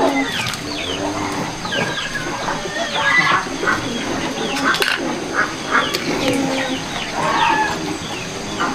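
Domestic chickens calling: many short, high, falling chirps mixed with lower clucks.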